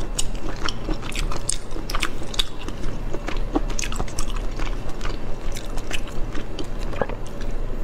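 Wet, sticky clicks and squelches of a whole cooked octopus being squeezed and pulled apart by hand, close to a clip-on microphone: many short irregular crackles with no steady rhythm.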